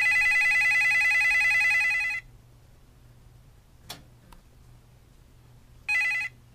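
Corded desk telephone's electronic ringer ringing in a high-pitched trill: one ring of about two seconds. A faint click follows, then the start of a second ring near the end, cut short.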